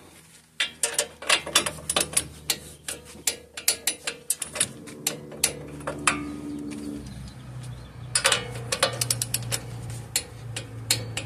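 Hand ratchet clicking in quick runs as a nut is tightened on the outer tie rod end, with a pause before a second run of clicks.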